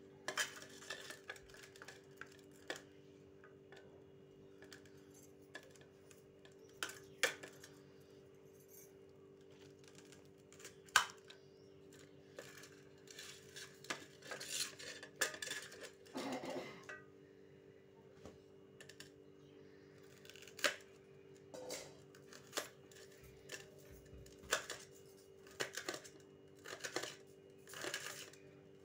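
Kitchen knife chopping onion in a stainless steel plate: irregular taps and clicks of the blade against the metal, some in quick runs, over a steady low hum.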